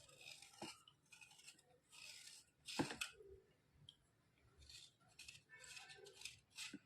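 Faint, short scraping strokes on thick white slate pencils, about ten in a row with pauses between them, and a few sharp clicks, the loudest near the middle.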